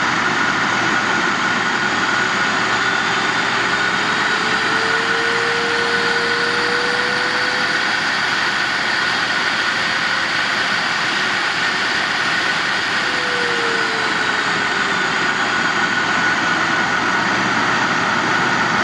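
AIIYME SH-168 pet grooming dryer blowing air, a steady rushing hiss with a high whine. Its motor tone climbs a few seconds in, holds, then drops back down past the middle as the speed control is turned up and back.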